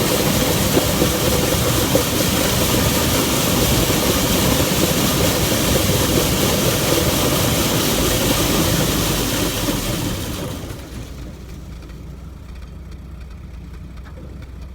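Combine harvester running under load while cutting wheat, a loud, steady mechanical din. About ten seconds in it winds down over a second or so to a much quieter, lower steady hum.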